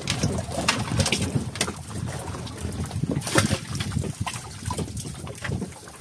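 Water lapping and splashing against the hull of a small fishing boat at sea, with irregular slaps and low wind rumble on the microphone.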